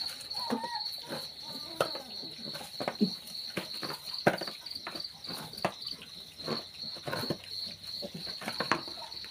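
Piglets feeding from a plastic dish: scattered short clicks and knocks of eating and of the dish being nudged, with the sharpest about two and four seconds in. Behind them, an insect chirps steadily in a high, rapidly pulsing trill, like a cricket.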